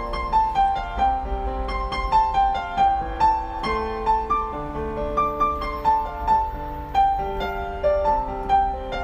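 Gentle piano music: a melody of single notes, about two or three a second, over held lower notes.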